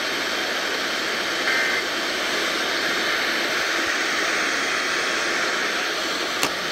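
FM radio static: a steady, even hiss from a receiver on a weak, distant station with no programme getting through. A brief faint tone comes about a second and a half in, and a click near the end.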